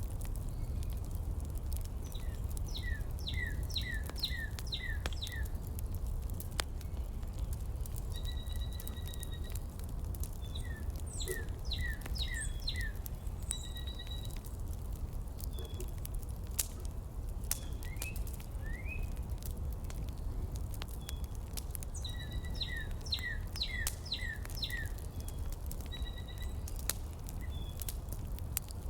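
Steady low rumble of a room heater, with birds chirping over it in quick runs of five or six falling notes three times, a few held whistled notes between, and scattered faint clicks.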